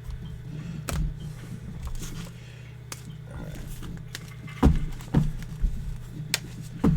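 Trading cards being handled and laid down on a table while being sorted into piles: a series of sharp taps and clicks, loudest about two-thirds of the way through, over a steady low hum.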